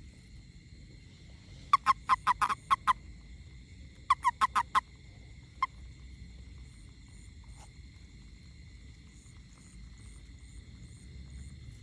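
A frog calling in two quick series of loud croaks, about seven and then five notes, with one more croak a little later, over a steady high insect-like background hum.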